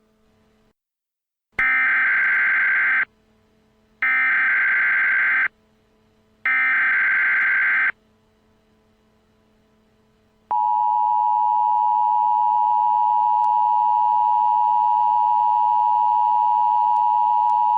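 Emergency Alert System tones: three bursts of SAME digital header data, each about a second and a half long and a second apart, then about ten seconds in the steady two-tone EAS attention signal begins and holds.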